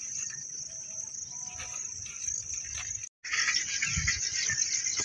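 Steady, high-pitched insect chorus. It cuts out for a moment about three seconds in, then returns louder over the rumble and rattle of a bicycle riding along a brick lane.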